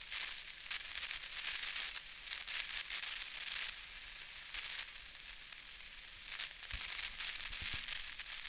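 A steady, fizzing, crackling hiss with all of its sound high in pitch, and a couple of faint low knocks near the end.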